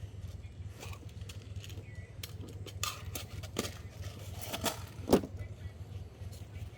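Scattered knocks and clicks of equipment being handled, the loudest about five seconds in, over a steady low hum.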